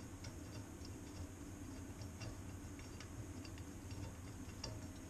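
Faint, irregular small metallic clicks of a wrench and bolt being worked by hand at a steel trailer fender bracket, fitting a bolt into a nut that cannot be seen, over a low steady hum.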